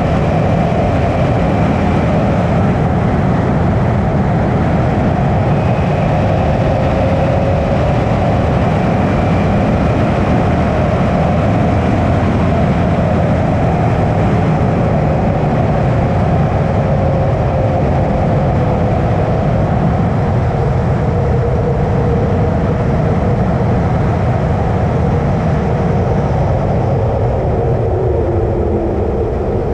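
Suzuki V-Strom 650's 645 cc V-twin engine running steadily under way, heard with rushing wind. The engine note drops a little near the end as the bike eases off.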